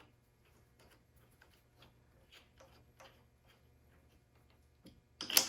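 Faint scattered metallic ticks and clicks of lathe chuck parts and tools being handled, then one sharp, loud metal clack near the end.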